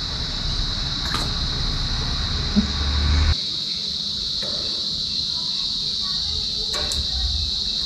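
Steady high-pitched insect chorus, an unbroken drone. A low rumble underneath cuts off suddenly about three seconds in, and a couple of faint clicks come near the start and near the end.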